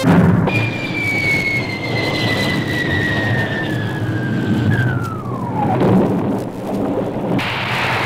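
Rocket-ship landing sound effect: a steady rushing roar with a whistling tone that glides slowly down, then drops more steeply about five seconds in, while the roar carries on.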